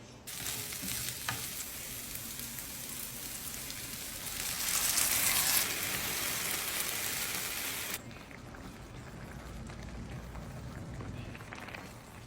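Food frying in hot oil with a steady sizzle. It grows louder about four seconds in and drops off sharply about eight seconds in to a fainter sizzle.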